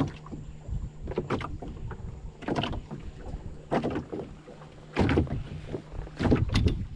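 A series of hollow knocks and clunks from fishing rods and gear handled against a small boat's hull, the loudest few close together near the end, over a low steady rumble.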